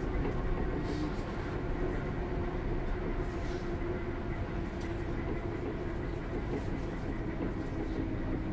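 Interior of a BREL Class 319 electric multiple unit running between stations: a steady low rumble with a steady hum running through it.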